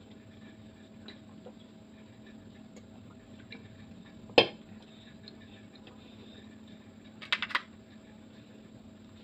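Tableware clatter at a meal: one sharp knock about four seconds in, then a quick run of three or four clinks of a metal fork against a ceramic bowl near the end, over a faint steady hum.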